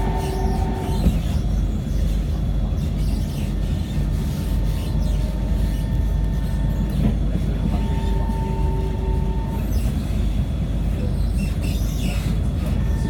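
Cabin noise of a C151 MRT train running along the track: a steady low rumble, with a thin whine that fades in and out a few times.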